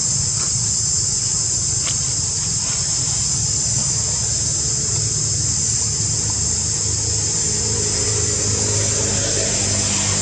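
Insects droning in a steady high-pitched chorus, over a steady low rumble.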